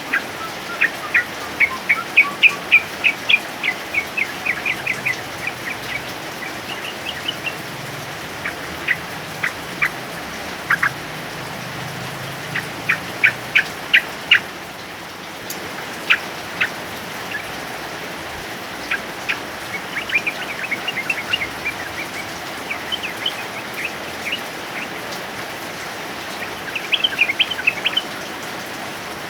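Male yellow-vented bulbul singing: quick clusters of short, sharp notes, broken by pauses, over the steady hiss of rain.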